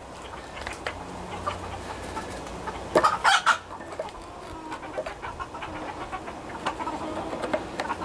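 Chickens clucking, with a louder burst of sound about three seconds in.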